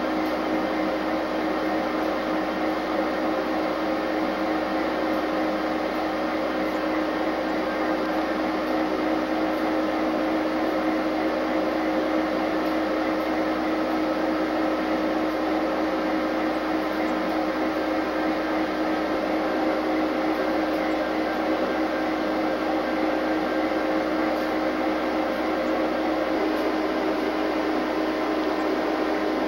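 Steady machinery hum inside an EMD SD60M diesel locomotive, with a constant mid-pitched drone over an even hiss, unchanging throughout.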